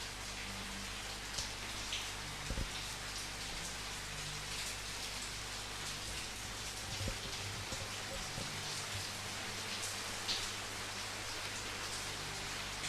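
Steady rain falling, a continuous hiss with scattered individual drops hitting a surface.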